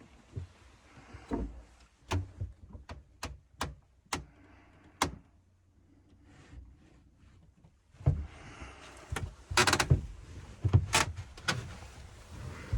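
A series of sharp clicks and knocks of hard objects being handled, then a louder, denser clatter of bangs and knocks starting about eight seconds in.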